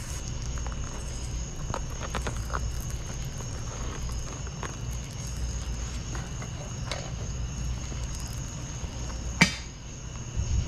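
Propane-fired metal-melting furnace burning with a steady low roar, while molten copper is poured into an ingot mould with scattered small crackles and ticks. Near the end there is a single sharp metal clank.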